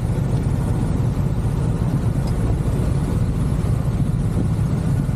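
Motorbike engines idling at a standstill: a steady, low-pitched pulsing hum that holds even throughout.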